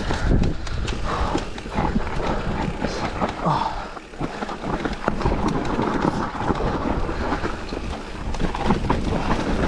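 Mountain bike descending a rough dirt trail: tyres rolling over dirt and roots, with the bike rattling and clattering in many short knocks over the bumps, and wind buffeting the helmet camera's microphone in a low rumble.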